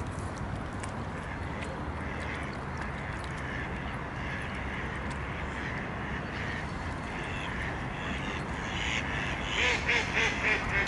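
Faint splashing and dabbling of swans feeding at the water's surface. Near the end, a duck quacks in a quick run of about five quacks.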